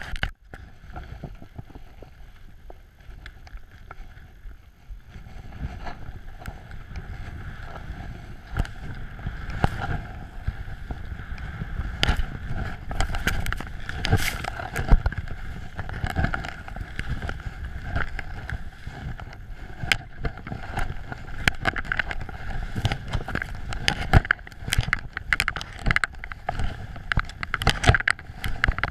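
Skis running through deep powder snow, with wind rumbling over an action camera's microphone and frequent short knocks and clatter from the skis and the camera mount. Quieter for the first few seconds, then louder and busier once the run picks up.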